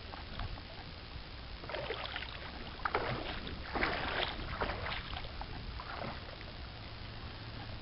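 Water swishing and splashing in a run of irregular short bursts as a sculling oar works at the stern of a small boat, over a steady low rumble.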